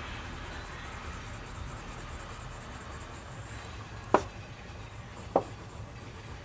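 Faber-Castell Polychromos coloured pencil scratching as it shades on sketchbook paper, over a steady low rumble. Two sharp clicks come a little over a second apart, near the end.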